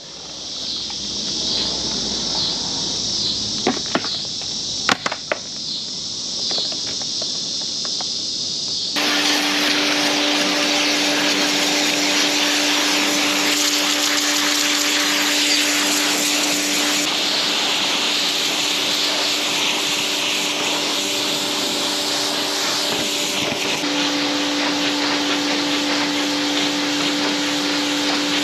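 Pressure washer spraying down the old wooden-and-metal seed cleaner: a steady hiss of the water jet. From about nine seconds in it gets louder and fuller, with the washer's motor giving a steady hum under the spray.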